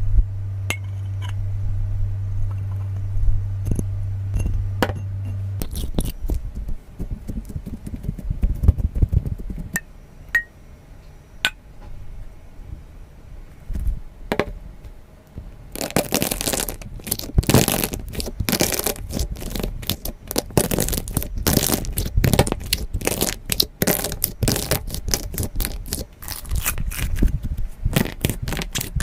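Slime being handled and squeezed: scattered sticky clicks and squelches, over a steady low hum for the first few seconds. About halfway through it turns into a dense run of sharp crackling pops.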